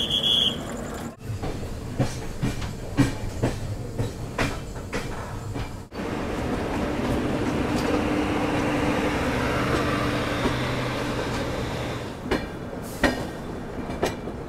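Moving passenger train heard from an open coach doorway: its wheels click rhythmically over rail joints. From about six seconds in there is a louder, steady running noise with a low hum, and separate wheel clicks return near the end. A brief high tone sounds right at the start.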